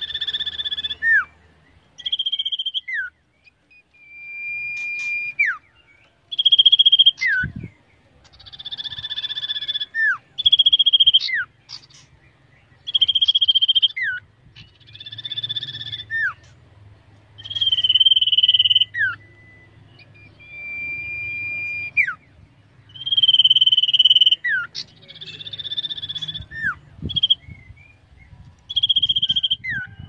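Common ioras calling: long, steady clear whistles, each ending in a quick falling slur, repeated every two to three seconds at two slightly different pitches that take turns.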